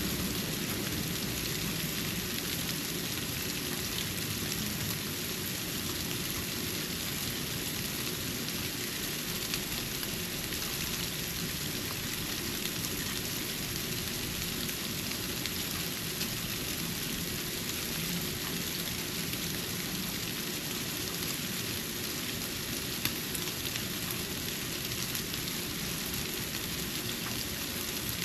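Falling snow, heard as a steady, even hiss with a couple of small clicks.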